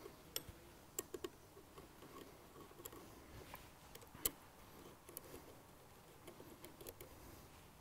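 Faint, scattered metallic clicks and taps of an Allen key working the cap bolts on a split roller bearing's cartridge lid, as the bolts are cross-tightened lightly. The sharpest click comes a little after the middle.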